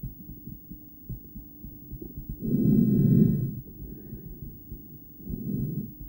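Heartbeat heard through a stethoscope on the chest, a run of dull low thumps. A loud breath through the stethoscope about two and a half seconds in lasts about a second, and a shorter one comes near the end.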